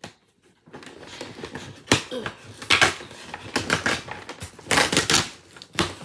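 Packaging being handled and torn open by hand: irregular crackling and rustling, with several sharp, louder crackles.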